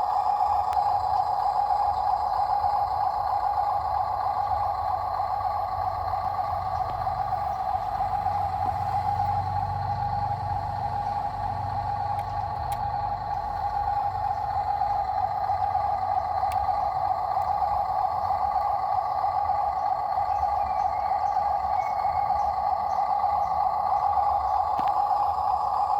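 Heavy diesel vehicle engine running steadily, a constant drone with a low rumble that swells for a few seconds about a third of the way in.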